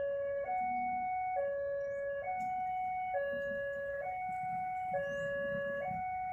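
Railway level-crossing warning alarm sounding its two-tone electronic signal, alternating steadily between a lower and a higher note, each held just under a second: the warning that a train is approaching. A low engine rumble runs underneath.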